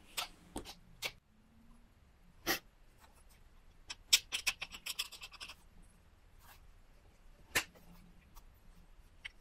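Pressure flaking a chert (Wyoming tiger or oil chert) knife point: a series of sharp, separate clicks as small flakes snap off the stone's edge under the pressure flaker, with a quick run of small clicks about four to five and a half seconds in.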